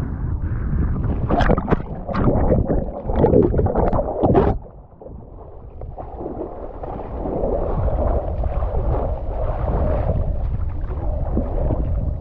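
Water splashing and sloshing around a kayak and paddler for about four and a half seconds. After a brief lull comes a steadier rush of water noise.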